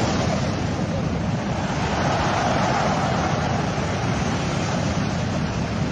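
Surf breaking and washing up the shore, with wind buffeting the microphone: a steady rush of noise without a break.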